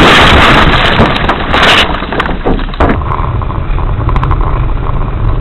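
Vehicle road and wind noise: a loud rushing noise for about two seconds, then an abrupt change to a quieter low rumble with a few scattered clicks.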